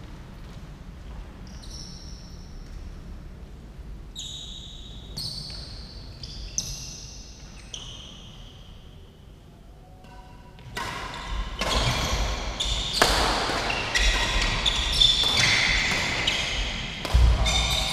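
Badminton doubles play on an indoor court. Scattered shoe squeaks between points give way, about eleven seconds in, to a rally: racket hits on the shuttlecock, quick footsteps and frequent sneaker squeaks, echoing in the hall.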